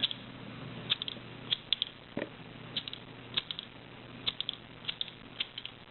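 Sharp metallic clicks from an old Storm King petrol lighter being worked by hand, irregular and often in quick clusters of two or three.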